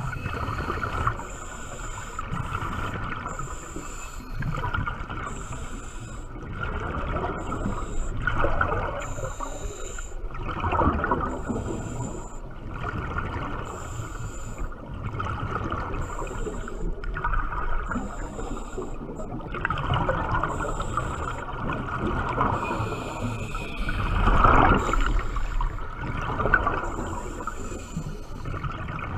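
Muffled underwater water noise heard through a diving camera's housing, swelling louder now and then, most strongly near the end. A faint high-pitched tone pulses on and off about every second and a bit.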